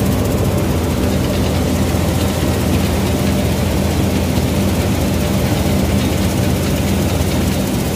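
Gill 961 combine harvester running steadily with a heavy, even engine drone while its unloading auger empties wheat from the grain tank into a trolley.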